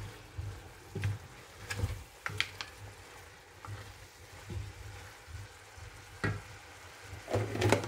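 A wooden spatula stirring meat, onions and tomatoes frying in a non-stick pot, with a faint sizzle and irregular clacks and scrapes of the spatula against the pot.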